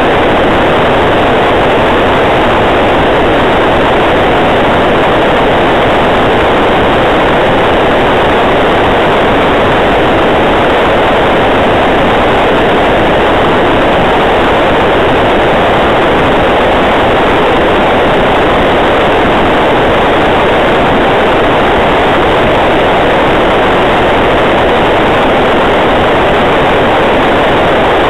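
Steady, loud hiss of radio static from the FPV video receiver's audio channel, an even rush of noise with no motor tone in it.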